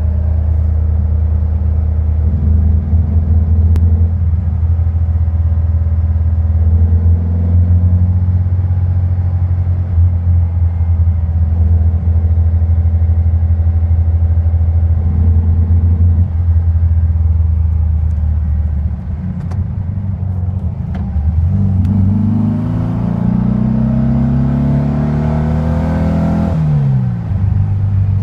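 VW Beetle air-cooled flat-four engine idling unevenly. About three-quarters of the way through it is revved up slowly over several seconds, then drops quickly back to idle near the end. The engine hesitates and misfires.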